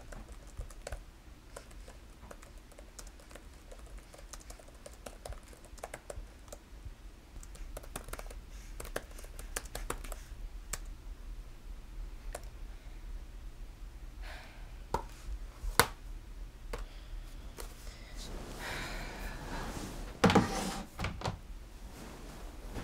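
Typing on a laptop keyboard: irregular runs of clicking keystrokes with pauses. Near the end come rustling and a loud thump as the typist shifts on the bed.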